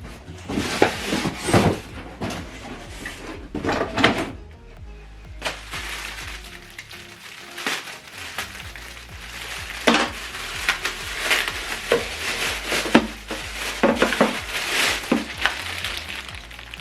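Cardboard and plastic packaging handled while a box is unpacked: irregular scraping, rustling and knocks, with background music underneath.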